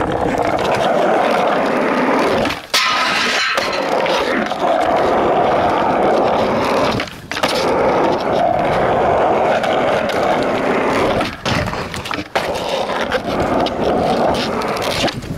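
Skateboard wheels rolling steadily over rough pavement, with a few sharp clacks of the board, about three seconds in and again about twelve seconds in.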